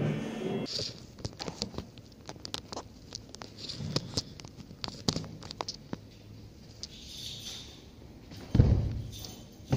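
Footsteps of socked feet on a wooden floor close to the microphone, a run of light taps and knocks, with a heavy thud near the end. The last of an amplified guitar fades out in the first second.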